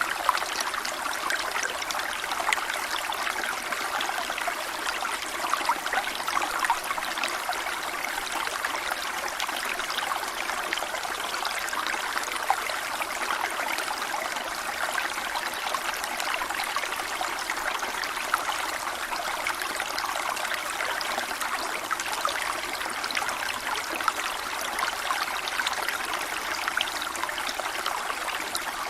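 Waterfall water splashing and trickling steadily, a dense even patter of small splashes without a deep rumble.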